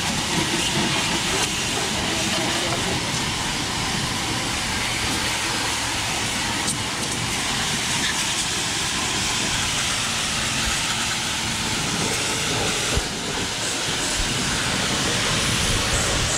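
Gaocheng GC-RS3 2300 W electric pressure washer spraying a high-pressure jet of water onto a truck's metal radiator and frame: a steady, loud hiss of spray hitting metal, with a brief dip about thirteen seconds in.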